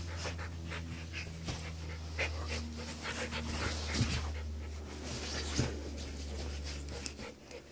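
Two Samoyed dogs, one a puppy, play-fighting: quick breathy panting and mouthing sounds, with two sharp louder sounds about four and five and a half seconds in.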